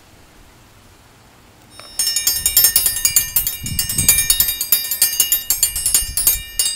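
A hanging metal alarm bell of the breakfast-bell kind, rung hard and fast from about two seconds in: a rapid run of strokes, several a second, each with a bright high ringing.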